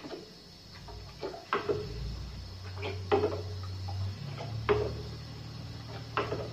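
Metal ladle stirring thin flour batter in a plastic bowl, knocking against the bowl's side about once a second with short clinks, and batter pouring back from the lifted ladle.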